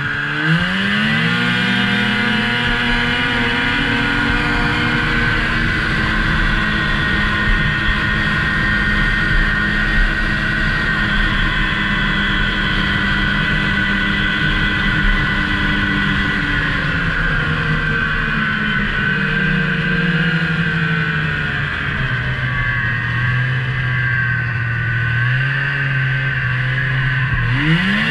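Ski-Doo snowmobile engine under way: it revs up quickly at the start, holds a steady high speed, eases off to a lower pitch about two thirds of the way through, then revs up sharply again near the end. A steady higher drone from the drive runs under the engine.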